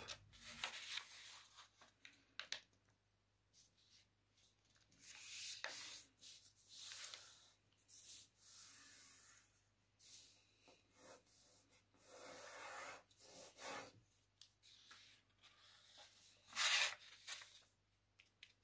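A sheet of paper being folded in half and creased by hand: faint rustling and rubbing in short, scattered bursts, the loudest a couple of seconds before the end.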